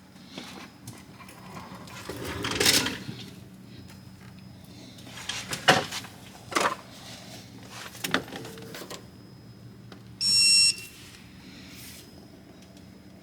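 A single loud electronic beep of about half a second, about ten seconds in, with a few scattered knocks and clatters before it.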